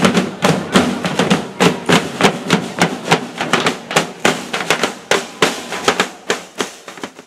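A marching corps of side drums played together with sticks, beating out a steady marching rhythm of sharp strokes, about four a second.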